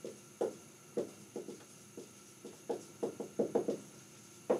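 Dry-erase marker writing on a whiteboard: a string of short, irregular taps and strokes, several a second, as letters are written.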